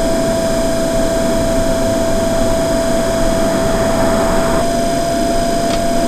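Chinese diesel air heater starting up: its blower fan runs with a steady whine over a rush of air. Near the end its fuel pump begins to tick, pushing fuel through a line that is not yet primed.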